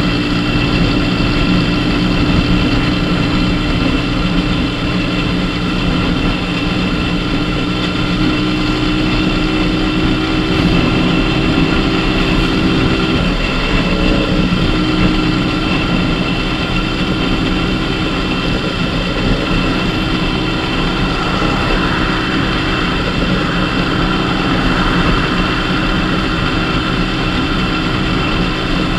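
Dafra Super 50cc motorcycle's small engine running steadily at cruising speed, with wind and road noise rushing over the handlebar-mounted microphone. The engine note shifts briefly about halfway through.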